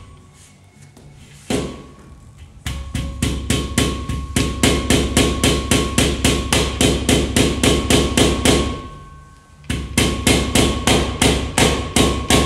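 Rapid, even hammer strikes, about five a second, in two long runs after a single knock, tapping a rubber strip down into its groove to seat it.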